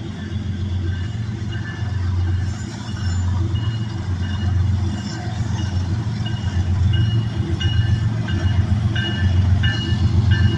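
CSX freight train approaching behind GE ES44AH diesel-electric locomotives: a steady, pulsing low diesel rumble that grows louder as it nears. A short high ringing note repeats at a steady pace over it from about three seconds in.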